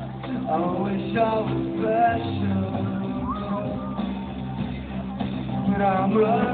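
Live rock band playing: guitars, bass and drums holding steady low notes under a singer's voice, which comes in with two phrases, one about a second in and one near the end.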